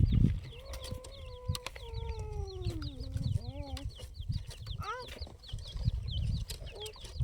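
Birds calling, given as grey francolin (titar): rapid high chirps repeat several times a second throughout. A long, slowly falling call runs through the first few seconds, and a few short rising notes come around the middle. A low rumble, like wind on the microphone, sits underneath.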